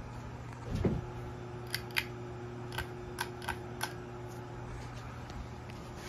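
A 52-inch Hunter Westminster ceiling fan with a bad capacitor, running with a steady low motor hum; a fainter higher tone joins about a second in and fades near the five-second mark. Over the hum come a dull bump about a second in and six sharp clicks between about two and four seconds.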